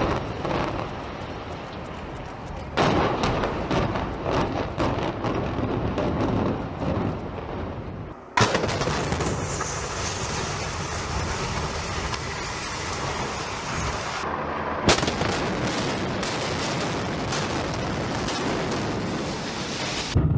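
Building implosion: demolition charges firing in rapid runs of sharp bangs over a continuous rumble of the structure coming down. The sound breaks off abruptly about eight seconds in and resumes at once with another collapse, with a second run of rapid bangs a few seconds later.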